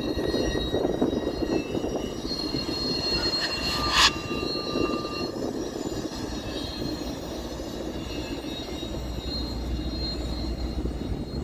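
Commuter train rumbling steadily past across the yard, with faint high-pitched wheel squeal over the rumble. A brief sharp noise about four seconds in is the loudest moment.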